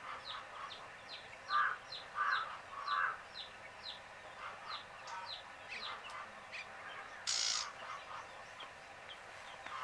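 Baby chicken chicks peeping: a steady run of short, high chirps that slide downward, several a second, with three louder, lower calls about two seconds in. A brief rustling hiss comes about seven seconds in.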